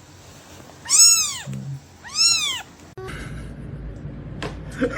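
Cat meowing twice, about a second apart, each meow rising then falling in pitch. A few faint clicks follow near the end.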